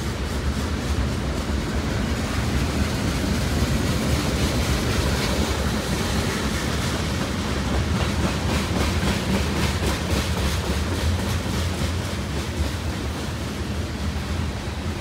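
Freight cars of a Union Pacific mixed manifest train rolling past close by: a steady rumble of steel wheels on the rails with faint, rapid clicking.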